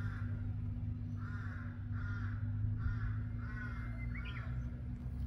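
A bird calling outdoors in a series of short, harsh, arched calls, about one every half second, over a steady low hum.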